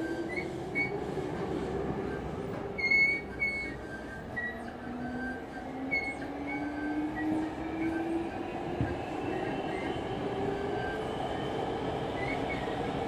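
Hankyu 5300 series electric commuter train heard from inside car 5302 while running, its traction motors whining and rising in pitch in steps as it picks up speed. Short high wheel squeals come through several times, the loudest about three seconds in.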